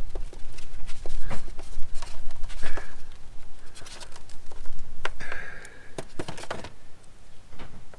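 Scattered clicks and knocks of hands-on work, tools and parts being handled, with a brief squeak about five seconds in.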